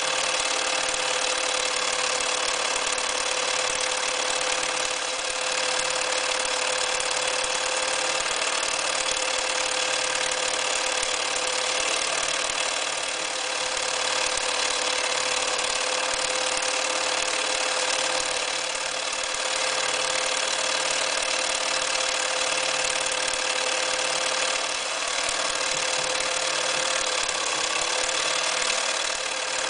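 Bernina Record 730 electric sewing machine running steadily as it stitches, its motor giving a steady hum, easing off briefly a few times.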